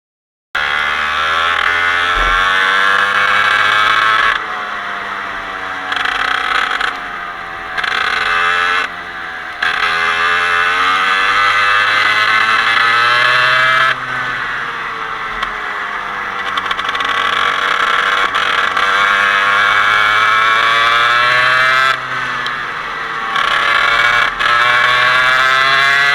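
Parilla 125cc two-stroke kart engine running hard, its revs climbing and falling again and again, with several sudden drops as the throttle is lifted.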